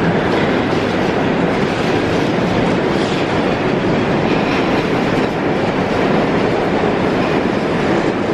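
New York City subway train running through the station: a loud, steady noise of wheels on rails that fills the platform.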